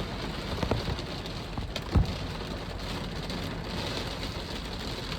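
Steady rain falling, with scattered sharp drop hits close by; the loudest hit comes about two seconds in.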